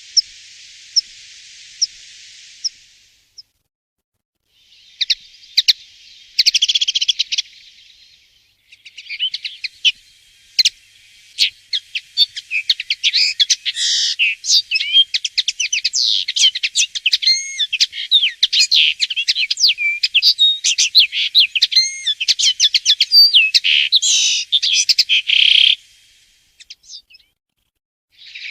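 Common linnet singing: a few single chirps spaced about a second apart, then a short twittering phrase, then a long, fast, varied twittering song of trills and warbles lasting over fifteen seconds that stops shortly before the end.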